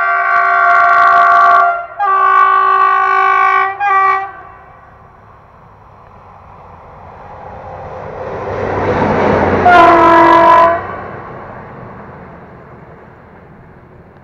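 Diesel locomotive running light, sounding its horn in two long blasts and a short one, then approaching with its engine and wheel noise growing louder and passing close by with one more horn blast at its nearest, before fading away.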